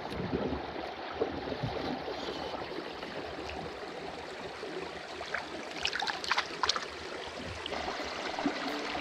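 Creek water trickling and lapping as a brook trout is held in the water beside a kayak for release, with a few small sharp splashes about six seconds in.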